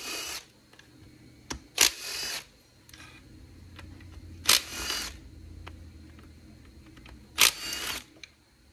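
Cordless power tool spinning out transmission front-cover bolts, in four short bursts of about half a second each, a couple of seconds apart.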